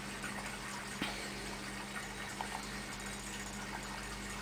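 Steady low electrical hum with a faint hiss, from the powered speakers and console, and a small click about a second in.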